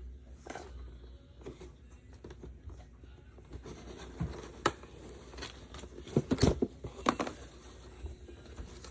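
Hands opening a toy's packaging: scattered scratching, scraping and rustling, with a cluster of sharper clicks and snaps about six to seven seconds in.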